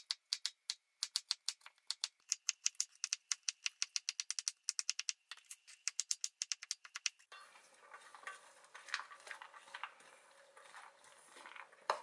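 Kitchen knife chopping zucchini on a wooden cutting board in quick, even strokes, about four a second. About seven seconds in, this gives way to a softer scraping and rustling of diced vegetables being stirred in a metal bowl.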